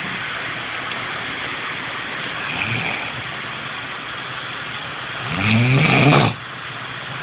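A man snoring over a steady hiss: a faint snore about two and a half seconds in, then a loud snore about five seconds in that rises in pitch, lasts about a second and cuts off sharply.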